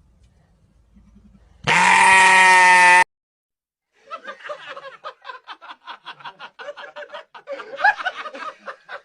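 A goat letting out one loud, long, scream-like bleat that cuts off abruptly. After a short silence comes a rapid run of short broken calls, several a second.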